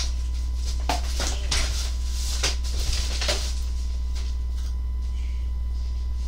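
Adhesive tape being peeled off skin in short, faint crackling tears, over a steady low electrical hum.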